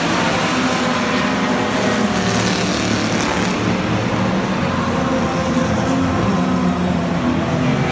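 Engines of several 1950s sports racing cars running as they pass one after another at moderate speed, a steady mix of overlapping engine notes with no sharp revving.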